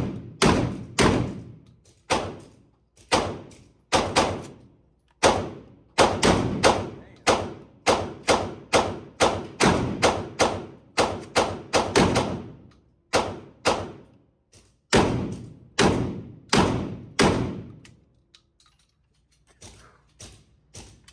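Saiga-12 semi-automatic 12-gauge shotgun firing rapidly: loud shots about two to three a second in several strings with brief pauses between them, each shot ringing out before the next. The firing stops a few seconds before the end.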